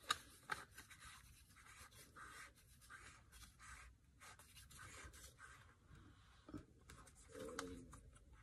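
Faint handling noise from a Sony ZV-1 camera on a plastic handheld tripod grip: scratchy rubbing and scattered small clicks as it is turned and adjusted in the hands.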